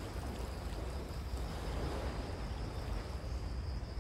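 Steady low wind rumble on the microphone, with a faint steady high-pitched whine above it.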